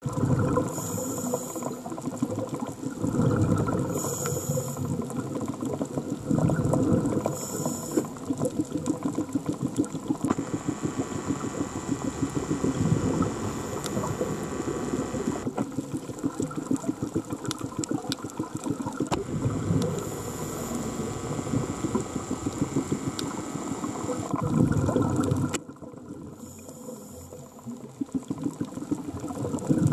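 Scuba diver breathing through a regulator underwater: a short hiss on each inhalation followed by a low rush of exhaled bubbles, repeating every few seconds. A steady humming tone joins in for about five seconds in the middle.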